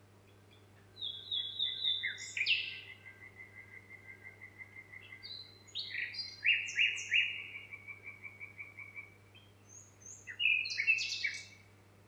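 A songbird singing three phrases of rapid trills and chirps, each a few seconds long, with short pauses between them.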